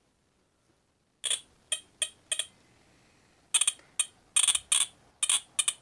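High-voltage sparks from an ignition coil fired by an MSD 6AL multi-spark-discharge ignition box. About ten short, sharp zaps come in an irregular series, starting a little over a second in. Each zap is several sparks in one shot, and the firing shows the box works.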